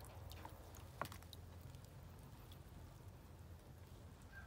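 A few light clicks and drips of water as wet vegetables are lifted out of a basin of water, the sharpest about a second in, then near silence.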